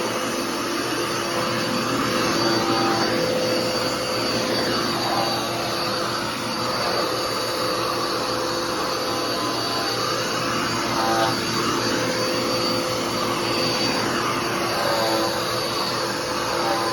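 Dirt Devil PowerMax Pet upright vacuum cleaner running steadily, a whine over its airflow noise, the pitch wavering a little.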